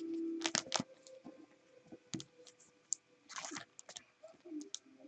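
Trading cards being handled on a table: light clicks and taps, with a brief sliding rustle a little over three seconds in.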